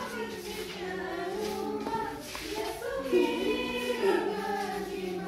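A congregation, many of them children, singing a church hymn together in sustained, drawn-out lines.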